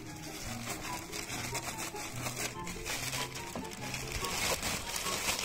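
Clear plastic bag crinkling as handfuls of small fish are pushed and shaken into it, over background music.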